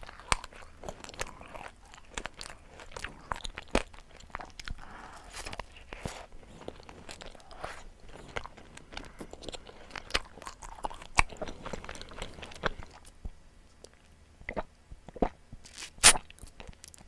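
Close-miked eating: irregular sharp crunches and bites with chewing between them, the loudest crunch about sixteen seconds in.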